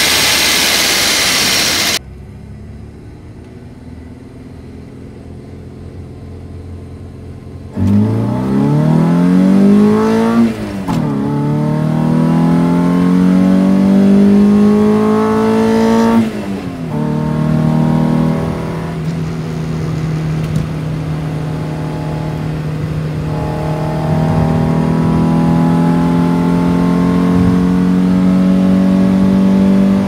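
Car engine fed by a Weber 40 IDF twin-choke carburettor, with a straight-through exhaust. A loud intake rush for the first two seconds cuts to the engine running low and quiet inside the car. About eight seconds in it revs hard under acceleration, its pitch climbing, dropping at a gear change a couple of seconds later, climbing again and dropping at another change, then holding a steady high-rev note that grows louder near the end.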